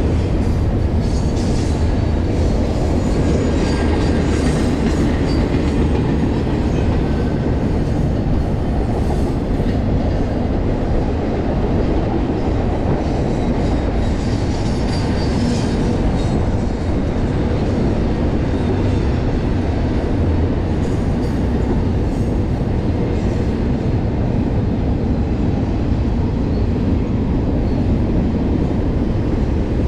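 BNSF intermodal freight train rolling past: a steady, loud rumble of steel wheels on the rails, with faint high wheel squeal now and then.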